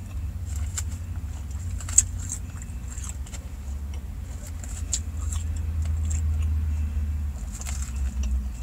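Fork clicking and scraping against a plastic salad container while someone eats, with a sharp click about two seconds in, over a low steady rumble inside a car.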